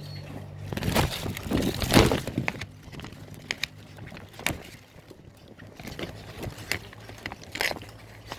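Strong storm wind gusting against a house: a loud rush of wind with rattling and knocking about a second in, then scattered sharp knocks and bangs.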